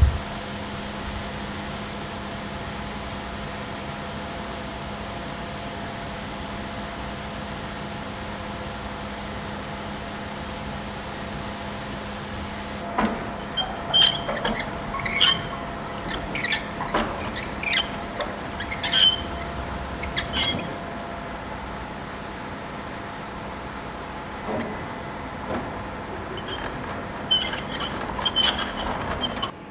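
A steady mechanical hum, joined about halfway through by a run of sharp metallic clanks and rattles, with a few more near the end.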